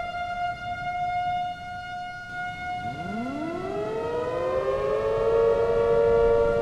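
Outdoor tornado warning sirens. One siren holds a steady high wail that sags slightly in pitch, while about three seconds in other sirens wind up from a low growl and settle into a steady, lower wail, growing louder.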